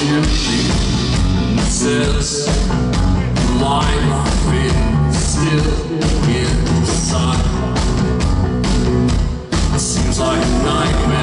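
Post-punk band playing live at full volume: drums, bass and guitars with a steady beat, breaking off briefly about nine and a half seconds in before the song drives on.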